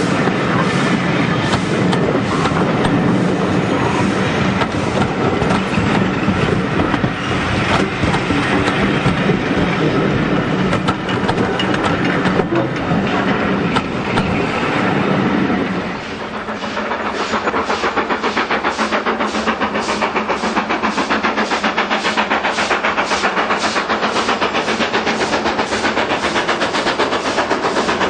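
Passing railway coaches rumbling by at close range, their wheels clicking over the rail joints. About sixteen seconds in, this gives way to a BR Standard 4MT 2-6-4T tank steam locomotive working towards the listener, its exhaust beating in a steady, even rhythm.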